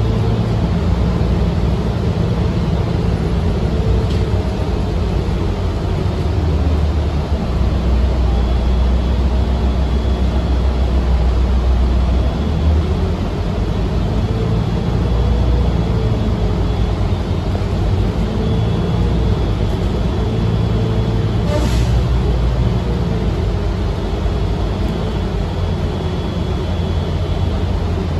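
Inside a moving city bus: the steady low rumble of the bus's engine and road noise, with a faint whine that wavers up and down in pitch. A single sharp click sounds about three-quarters of the way through.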